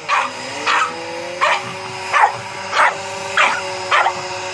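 A dog barking at a vacuum cleaner in a steady string of seven sharp barks, about two-thirds of a second apart. Under the barks the hoover's motor hums steadily, its pitch shifting in the first second and a half.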